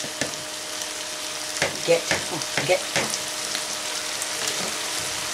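Chicken, peppers and onion sizzling steadily in a frying pan, loud enough to talk over. A plastic spatula scrapes and knocks against the pan a few times in the first half as the food is stirred.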